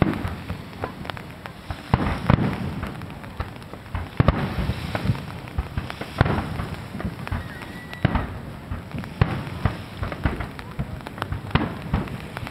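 Aerial firework shells bursting in a continuous run of booms, one every second or two, with crackling between the bursts.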